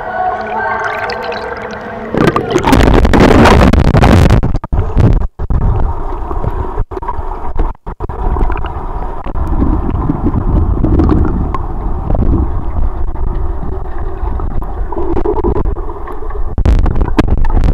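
Pool water heard through a waterproof compact camera's microphone as it goes under. A loud splash comes about two seconds in, then a muffled, rumbling underwater wash with a few brief cut-outs. Another splash-like burst comes near the end.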